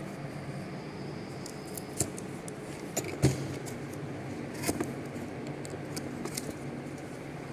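Cardboard box being handled and its tucked end flap opened: scattered sharp taps, clicks and scrapes of card, the loudest a knock about three seconds in, over a steady low hum.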